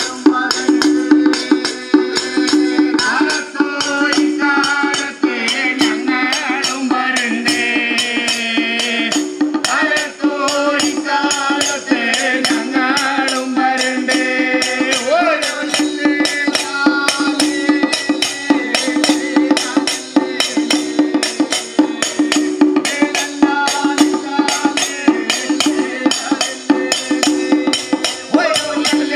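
Kerala temple ritual music: a fast, even rhythm of sharp percussion strikes, about three or four a second, over a steady drone, with a melody line.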